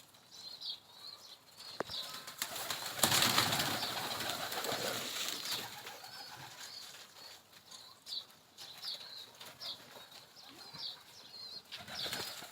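Pigeons at a rooftop loft, with a burst of wing flapping about three seconds in and repeated short, high bird chirps throughout.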